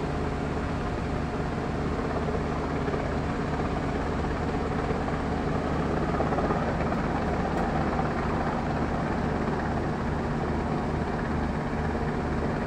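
Helicopter flying overhead, its rotor and engine noise a little louder about six seconds in, over a steady low machinery hum.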